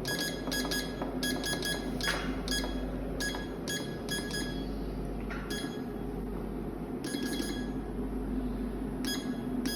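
HS-T101 automatic heat shrink tube cutting machine running, its blade clicking sharply with a short metallic ring in quick bunches with brief gaps, over a steady motor hum. It is set to one cut per feed.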